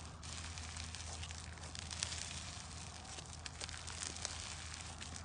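Fried-chicken-textured slime crackling and tearing as hands stretch and squeeze it: a steady run of fine crackles, over a low hum.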